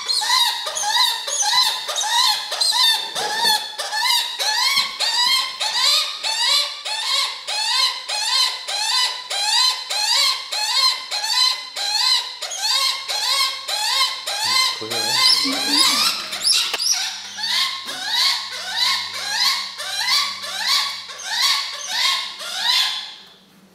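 Hatch-year male Cooper's hawk, held in the hand for banding, calling over and over: a long, even series of high, upward-sliding cries, about two a second, that stops just before the end.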